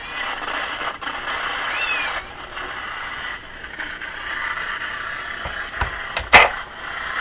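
Transistor radio hissing with steady static. About two seconds in a cat gives a brief high cry that rises and falls. About six seconds in come two sharp knocks, the second louder.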